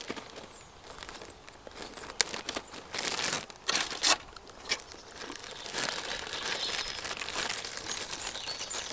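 Aluminium foil crinkling and rustling as a foil packet is pulled open by hand, in irregular crackles that are loudest around the middle.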